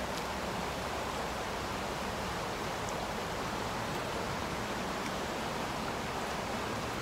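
River water rushing steadily: a fast-flowing, broken-water stretch of river giving an even, unbroken noise.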